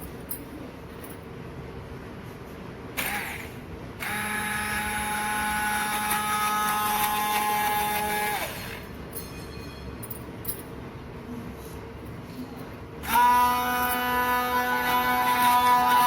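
Kent hand blender's motor whirring as it blends pomegranate seeds in a little water: a run of about four seconds that winds down as it is switched off, then a second, louder run starting near the end.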